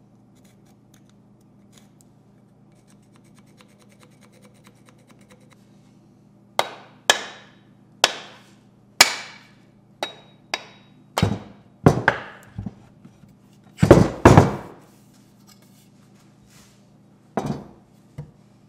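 Faint scratching of a pencil marking a wooden axe handle, then about a dozen sharp mallet knocks, loudest near the end, as a mallet drives the steel axe head off the handle after a test fit. Two lighter knocks near the end as the parts are set down on the wooden bench.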